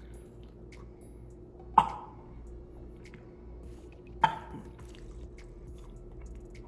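Two sharp knocks about two and a half seconds apart, each with a short ring, over a steady low hum.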